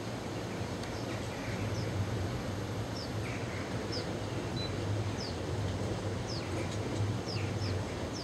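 Narrow-gauge mine railway train approaching through a tunnel: a steady low rumble that swells and eases a little. A small bird chirps over it again and again, short falling calls.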